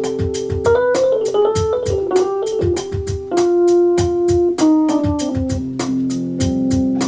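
Electronic keyboard music with an organ-like sound: a falling run of notes over held chords, then a long sustained chord, over a steady ticking beat.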